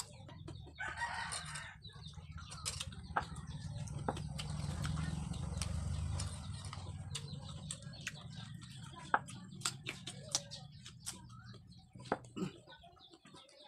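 Chickens: a rooster crowing about a second in, with clucking, over a steady low rumble that swells in the middle. Short sharp clicks of mouth-smacking while eating run throughout.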